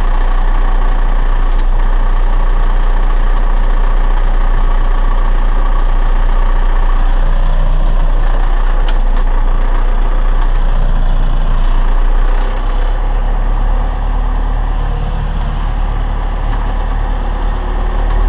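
Tractor engine running steadily and loudly, its low hum changing note and dropping slightly in level about 13 seconds in.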